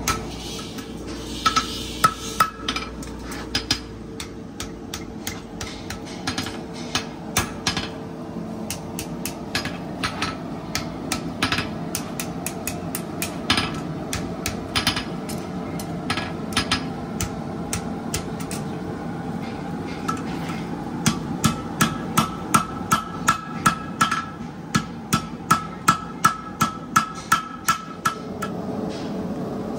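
Farrier's hammer striking a red-hot steel horseshoe held in tongs on an anvil while forging it, over a steady hum. The blows are irregular at first; from about two-thirds of the way in comes a run of louder, even strikes, about two a second, with the anvil ringing.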